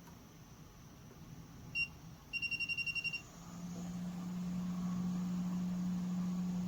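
Electronic beeps from a hot air rework station's control panel: one short high beep, then a rapid run of about nine beeps as a setting is stepped. Its blower then starts, a steady low hum that builds over about a second and holds.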